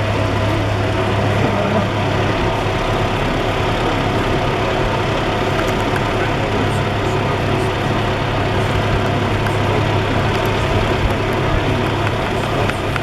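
A steady, low engine hum over a dense background noise, strongest in the first couple of seconds.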